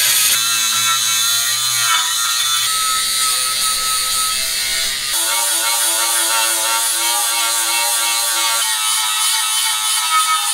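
Cordless angle grinder with a sanding disc running at speed, grinding weld seams flush on a van's steel bumper and throwing sparks. Its steady whine changes pitch abruptly a few times.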